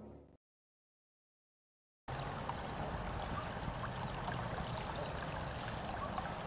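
Background music fading out at the start, then a short gap of silence. About two seconds in, a steady rushing outdoor noise begins, with faint scattered ticks.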